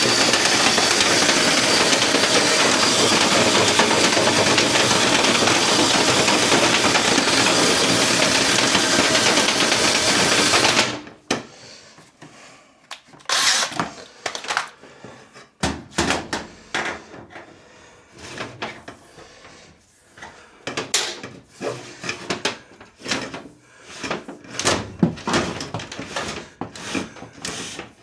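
Power drill spinning a rotary dryer-vent cleaning brush on extension rods inside the vent duct, running steadily and then stopping abruptly about eleven seconds in. Scattered knocks and rattles follow.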